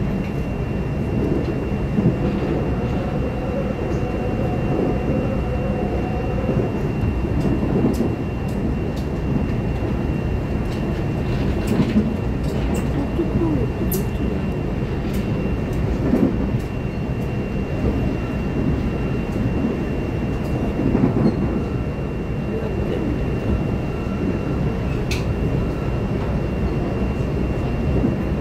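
Train running along the line, heard from inside the passenger car: a steady rumble of wheels on rail with scattered sharp clicks and a faint steady high tone.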